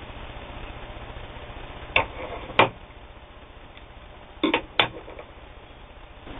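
Sharp metallic clicks and clacks from an all-metal Singer 15K sewing machine being handled while it is threaded up: two clicks about a second apart, then a quick cluster of three near the end.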